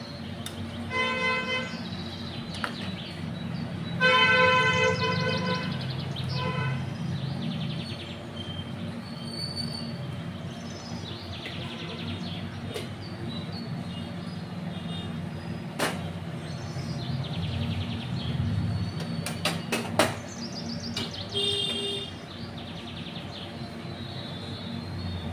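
A horn honking in short blasts near the start, the longest and loudest about four seconds in, over a steady low hum.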